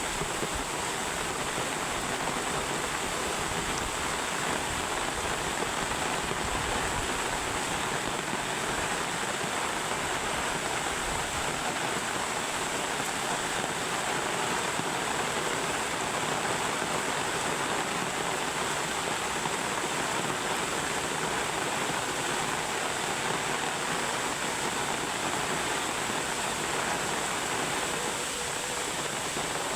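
Small river in spate rushing steadily, with heavy rain falling.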